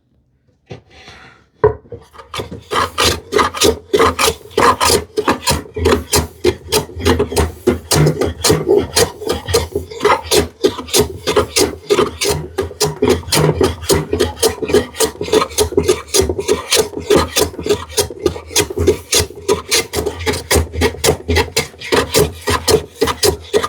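A hand tool shaving and scraping a curved wooden edge, rapid back-and-forth rasping strokes, about three to four a second, starting a second or two in, as the arc is worked down to a pencil line.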